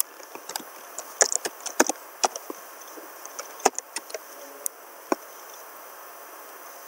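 Computer keyboard keys clicking irregularly as a username is typed, stopping about five seconds in.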